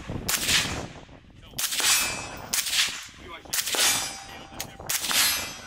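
Suppressed battle rifle fired in single shots, about six roughly a second apart, some followed by a short metallic ring.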